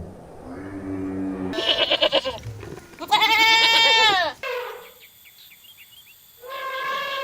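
Goats bleating: several separate, wavering calls, the loudest about three to four seconds in, dropping in pitch as it ends.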